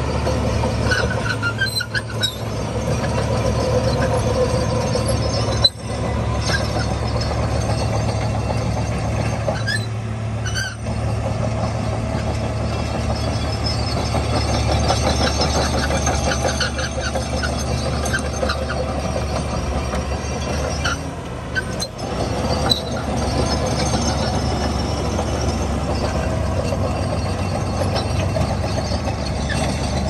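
Komatsu crawler bulldozer's diesel engine running steadily under load while it pushes soil with its blade, with its steel tracks clanking and giving short high squeaks now and then.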